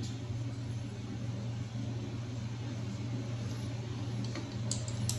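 Steady low mechanical hum of background machinery, with a few light clicks near the end from hand tools being worked in the engine bay.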